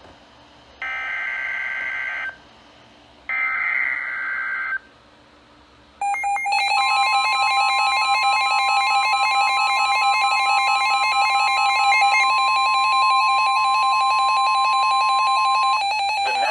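Emergency Alert System SAME header data bursts: two harsh, buzzing digital screeches of about a second and a half each, a second apart, that encode the next alert. About six seconds in, the loud, steady EAS attention tone starts and holds, the two-tone alarm that announces a warning is about to be read.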